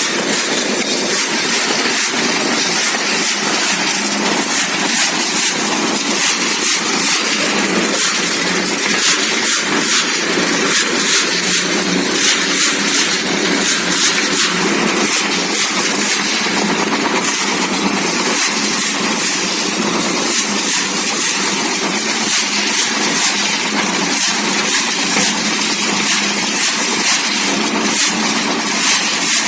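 Small motor of a DIY model vehicle running steadily, with faint irregular ticking over the top.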